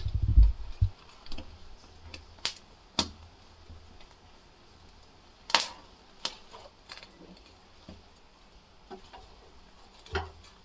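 Corn kernels popping and crackling as a cob roasts directly in a gas burner flame: sharp, single pops at irregular intervals, about ten in all. A low rumble of handling comes in the first second.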